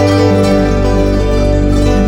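Instrumental background music with plucked strings, like a guitar, over sustained chords. A deep bass note comes in about half a second in.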